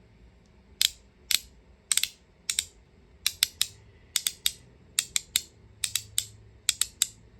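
Magnetic haptic fidget coin being snapped repeatedly: a string of sharp, loud clicks, many in quick pairs or triples, starting a little under a second in.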